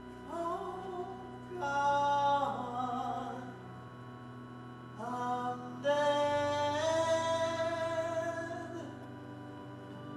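A singer sings four slow phrases of long held notes, the last about three seconds long, over a steady sustained instrumental backing.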